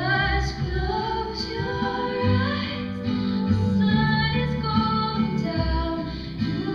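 A song: a woman singing, with held and gliding notes, over an instrumental backing with steady low notes.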